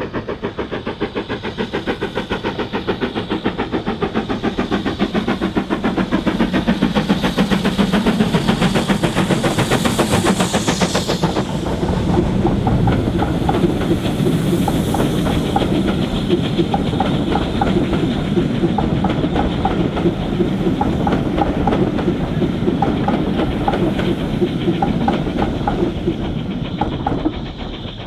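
Steam-hauled train passing at speed: a rapid rhythmic chuffing grows louder over the first several seconds, then the wheels click over the rail joints in a regular clickety-clack for much of the second half, fading near the end.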